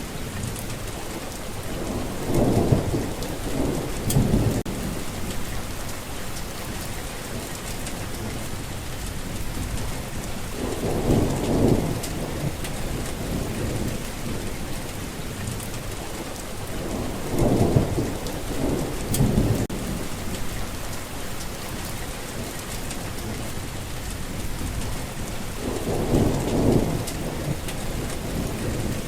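Steady heavy rain hissing on surfaces, with low rolls of thunder rumbling up and fading four times, every seven or eight seconds.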